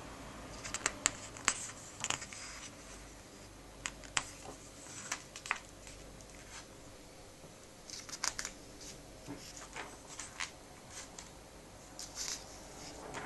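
Comic book pages being turned and pressed flat by hand: crisp paper rustles and snaps in short flurries every couple of seconds.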